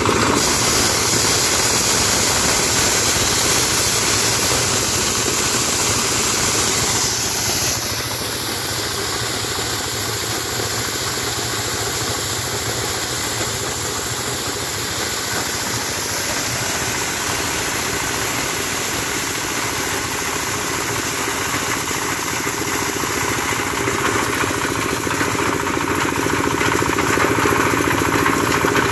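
Engine-driven corn sheller running steadily, its small stationary engine droning under the rattle of the threshing drum stripping cobs. A bright high hiss drops away about eight seconds in and the machine runs on a little quieter.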